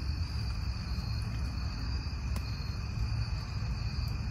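Steady chorus of crickets chirring in the night woods over a low rumble, with one sharp click about two seconds in.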